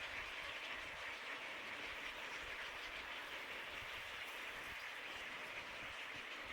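Steady outdoor background noise: a continuous, even hiss with no distinct calls or events.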